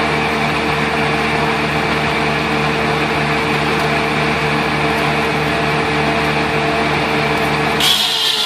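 Engine-driven sawmill machine running steadily with an even motor hum. Near the end the sound changes abruptly to a higher, hissing whine.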